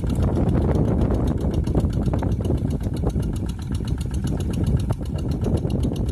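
Quick G1000 hand tractor's engine running steadily with a fast, even beat as the tractor works through deep, waterlogged paddy mud.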